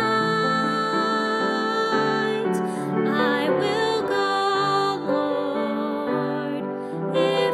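Soprano singing a hymn with upright piano accompaniment, holding long notes.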